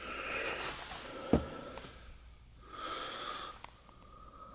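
A man breathing out hard through his nose twice. About a second and a half in there is a single sharp knock, the loudest sound, from the metal toolbox being handled.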